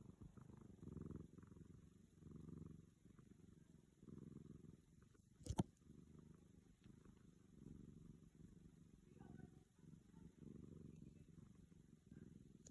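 Domestic cat purring softly, the purr swelling and fading in a slow breathing rhythm about every one and a half to two seconds. One sharp click about five and a half seconds in.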